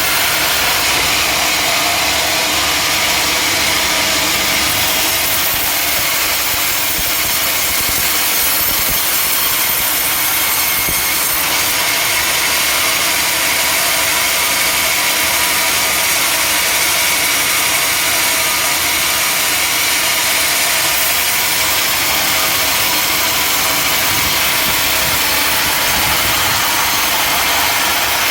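Sawmill machinery running steadily: a powered saw cutting through a log, with an engine under it, as one loud, constant noise.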